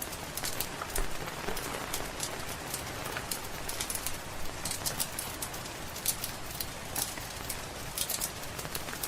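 Fireplace crackling, with irregular sharp pops and snaps over a steady hiss of rain.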